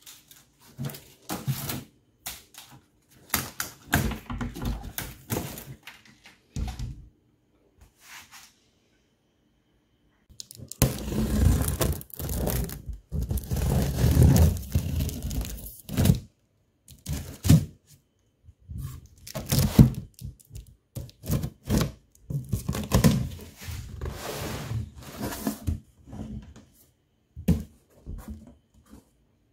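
Unpacking noises: irregular knocks of plastic cases being shifted, and a long stretch of tearing and crinkling as protective plastic film is peeled off a part, with cardboard packing handled near the end.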